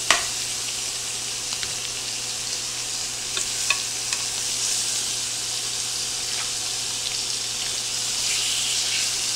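Chuck roast pieces searing in hot butter and oil in a skillet: a steady sizzle, with a few light clicks of the tongs as the pieces are set into the pan.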